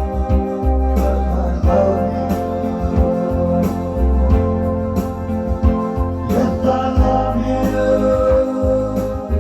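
1960s-style music: held electronic organ chords over bass and a steady drum beat, with singing.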